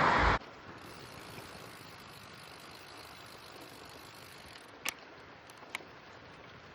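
A loud rushing noise cuts off abruptly about half a second in, leaving a faint steady hiss. Two short sharp clicks come a little over halfway through.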